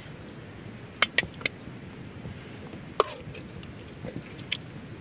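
Metal spoon clinking and scraping against a pan and a steel bowl as food is served. There are three quick clinks about a second in, the loudest single clink with a short ring about three seconds in, and a lighter one near the end.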